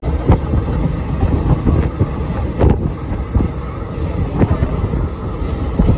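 Moving passenger train: a steady rumble with wind rushing over the microphone, broken by a few irregular sharp knocks from the wheels and coach.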